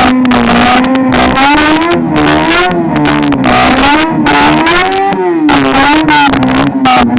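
Car engine held at high revs during a burnout, its pitch wavering up and down with brief repeated dips.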